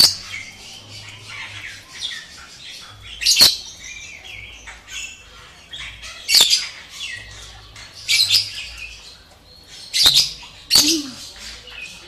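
African grey parrot giving short, sharp, high-pitched squawks and whistles, about six of them a couple of seconds apart, the last two close together.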